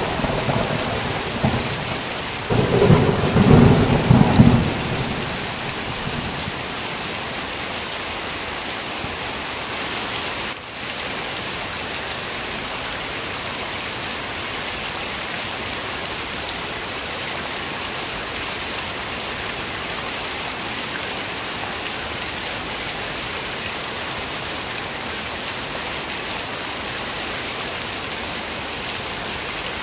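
Heavy rain falling in a steady hiss during a thunderstorm. The tail of one thunder peal fades at the start, and a second peal rumbles from about three seconds in for about two seconds.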